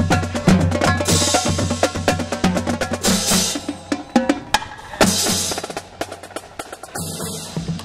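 Marching band drumline playing a fast cadence on snare drums, tenor drums and bass drums, with crash cymbals hit about every two seconds. The playing thins out near the end.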